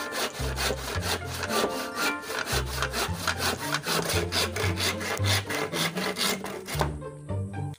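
Handsaw cutting through a green bamboo pole in quick, regular back-and-forth strokes, stopping near the end.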